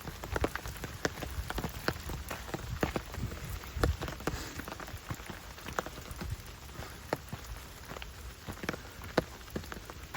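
Rain falling in a forest: a steady patter with many separate drops ticking sharply and irregularly close by.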